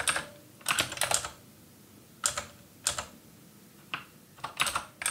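Typing on a computer keyboard: sharp key clicks in small, irregular clusters of a few keystrokes, with short pauses between them.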